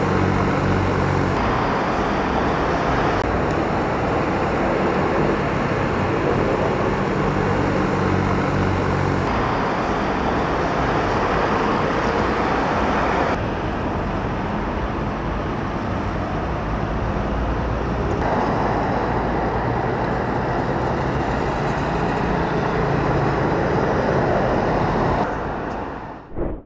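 Diesel engines of heavy earthmoving machinery, a dump truck and a wheel loader, running steadily under load, with sudden changes in the sound where one clip cuts to the next.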